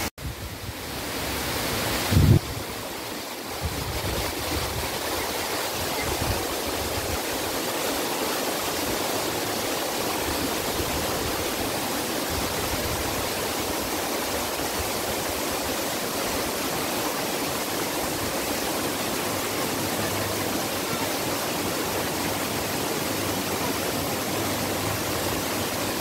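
Small rocky stream and cascade flowing, a steady even rush of water. A single low thump about two seconds in.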